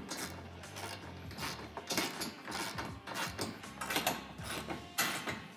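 A 9/16 socket ratchet clicking in short runs as it tightens steel bolts and nylock nuts on a UTV cargo rack's bed-rail mount, with metal tool-on-bolt clinks. The clicking is loudest about two seconds in and again near the end.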